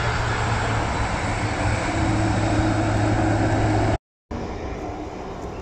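Jet engines of a twin-engine cargo airliner running steadily as it rolls along the runway, a loud even rush with a low hum under it. About four seconds in the sound cuts out abruptly for a moment at an edit, then returns quieter.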